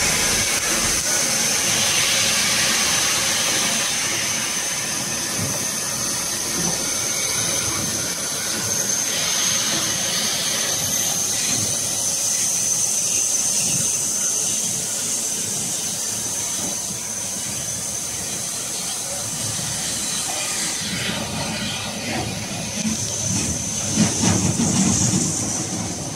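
Steam locomotive 35018, a rebuilt Bulleid Merchant Navy class Pacific, moving slowly past at close range, with a steady hiss of escaping steam and a high thin whine running throughout. Near the end the rumble gets heavier, with a sharp clank, as the tender and first coach roll by.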